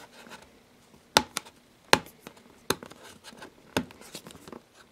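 Fingernails picking and scratching at the seal sticker on a small cardboard box, with four sharp clicks about three-quarters of a second apart and lighter ticks between them.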